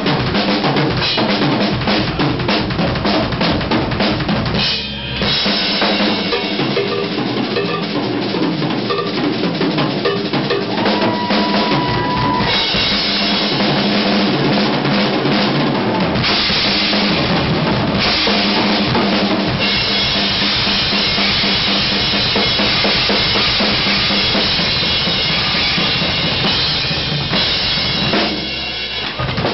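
Live drum solo on a full rock drum kit: fast, dense strokes on snare and toms with bass drum. There is a brief break about five seconds in, and from about halfway a continuous wash of cymbals rides over the drumming.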